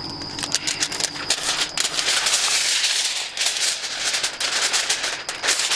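Thick aluminium foil being pulled from its box and handled, crinkling and crackling in dense irregular bursts.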